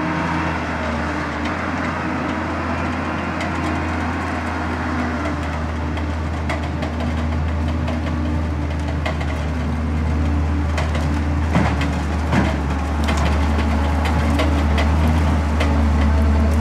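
NOE 170-6R forestry combi machine's 6.7-litre six-cylinder diesel engine running steadily as the machine drives over brush, a low drone that grows louder toward the end. Two sharp cracks stand out about two-thirds of the way in.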